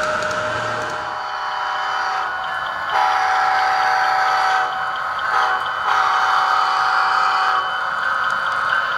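A diesel locomotive's air horn blows the grade-crossing pattern of long and short blasts, ending long, short, long, over a steady engine sound. A crossing bell ticks faintly throughout. This is the sound of the BNSF locomotives on an HO model layout.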